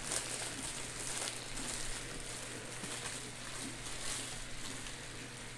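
Faint sizzling and crackling of food cooking on an electric hot pot and grill, over a steady low hum.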